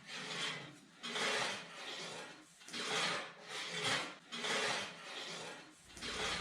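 Rasping strokes on wood, repeated back and forth at an uneven pace of about one a second.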